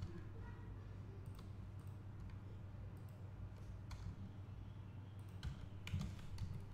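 Scattered single clicks from a computer keyboard and mouse, irregularly spaced, over a steady low hum.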